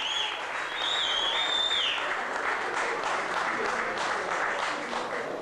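Audience applauding an award winner, a dense clatter of many hands clapping, with a high whistle rising and falling above it during the first two seconds.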